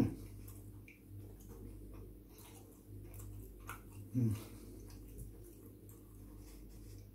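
Close-up mouth sounds of a person chewing pizza: faint wet clicks and smacks over a steady low hum. Twice, at the start and about four seconds in, a short low voiced 'mm' sound.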